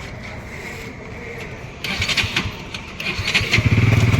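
Bajaj Pulsar NS200's single-cylinder engine being cranked on the electric starter: a burst about two seconds in, then a longer, louder spell of rapid pulsing turning-over near the end, during an attempt to start the bike.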